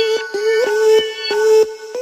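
Electronic background music with a steady beat and a sustained synth tone.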